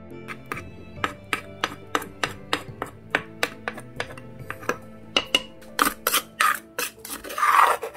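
Wooden pestle pounding chilies and garlic in a clay mortar, about three strikes a second. It is followed by a ceramic spoon knocking the pestle and scraping the paste from the mortar, with a loud scrape near the end. Background music plays underneath.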